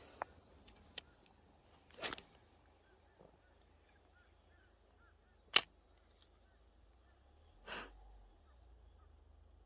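Bass-fishing rod and reel being handled: a few light clicks, a brief rush of noise about two seconds in, a single sharp loud click about halfway through, and another short rush near the end. Faint small chirps and a steady high whine sit underneath.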